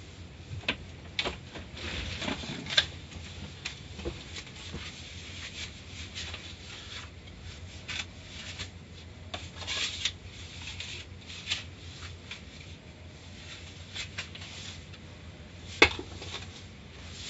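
Automatic car wash brushes rubbing against the car, heard from inside the cabin, over a steady low hum. Scattered sharp knocks run throughout, the loudest near the end.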